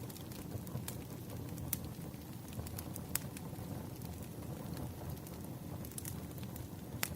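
Firewood burning: a steady low rumble of the fire with scattered sharp crackles and pops, a few of them louder, one just before the end.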